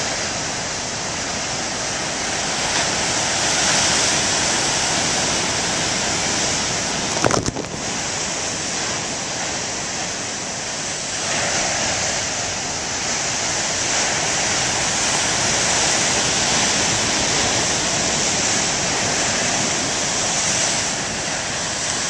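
Heavy storm surf breaking on a rocky shore: a continuous rushing wash of water that swells and eases as waves come in. A single sharp knock cuts through about seven seconds in.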